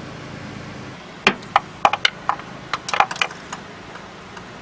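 New spark plugs and tools being handled: a quick run of about a dozen sharp small metallic clicks and taps, starting about a second in and lasting a couple of seconds.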